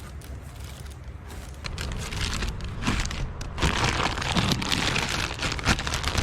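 Packaging being handled and unwrapped as an auto part is taken out of its box: irregular crinkling and rustling that grows louder about halfway through.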